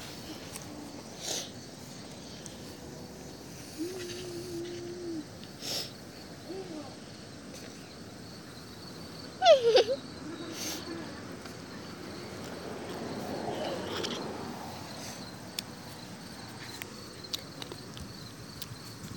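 Insects chirr steadily in the background while the phone is rubbed and jostled by a puppy playing close against it in the grass. A few short voice-like sounds stand out, the loudest a brief sliding yelp about ten seconds in.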